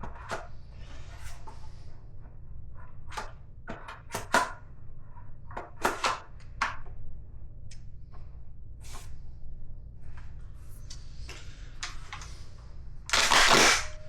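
12-gauge shotgun shells being loaded into a 20-round drum magazine: irregular sharp clicks and clacks of shells and the drum's feed mechanism, with a louder harsh rasp lasting about half a second near the end.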